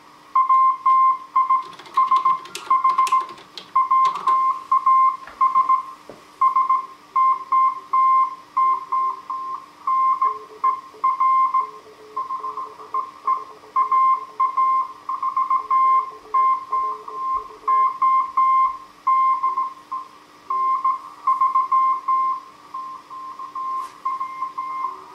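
Slow-speed Morse code (CW) from a Heathkit HW-101 transceiver: a steady tone keyed on and off in dots and dashes. From about ten seconds in, a fainter, lower-pitched Morse signal keys alongside it. A steady hum runs under both, and there are brief bursts of static crackle near the start.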